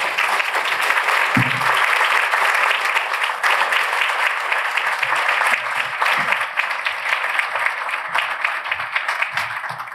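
An audience applauding: steady clapping from many hands that dies away near the end.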